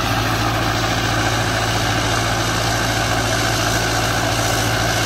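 Turbocharged tractor diesel engine idling steadily, with an even low hum that does not change in pitch.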